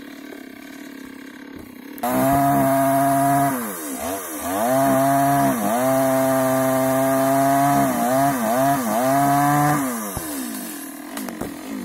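Two-stroke chainsaw: about two seconds in it opens up to high revs and runs, its revs dipping briefly and recovering several times, then dropping away about ten seconds in.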